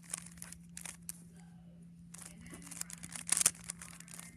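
Rubik's cube being turned by hand: quick plastic clicking and rattling of the layers, with a louder flurry of turns about three and a half seconds in, over a steady low hum.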